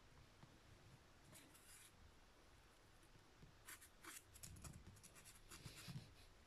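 Near silence with faint, scattered scratching and rustling: a young kitten's claws catching on the cardboard box and sheepskin as it clambers, in a short spell about a second in and a longer run in the second half.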